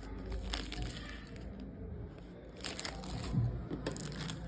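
Faint handling noise of scrap phone motherboards being picked up and shown: a few small clicks and rustles over a low steady hum.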